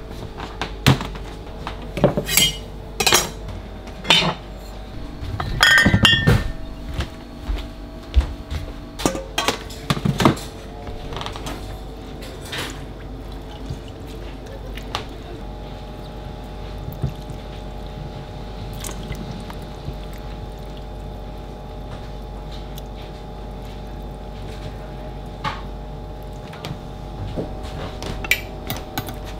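Stainless steel mixing bowls and kitchen utensils clanking and knocking as they are set down on a steel counter, in a quick series for about the first ten seconds. After that come a steady background hum and only occasional taps, with a few more clinks near the end.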